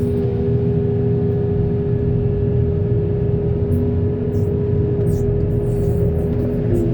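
Heavy diesel engine of a backhoe loader or tractor running steadily, with a steady whine over the low rumble.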